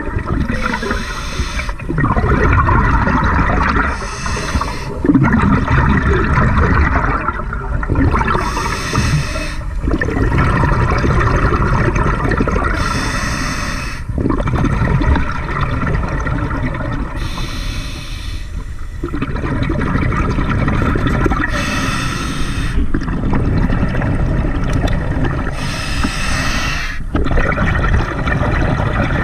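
Scuba diver breathing through a regulator underwater: a short hiss comes about every four and a half seconds, with exhaled bubbles gurgling and rumbling between.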